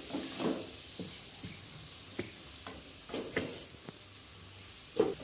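Shredded torch ginger flower sizzling in hot oil in a metal wok while a metal spatula stir-fries it, with repeated short scrapes and clacks of the spatula against the wok. The loudest clack comes just before the end.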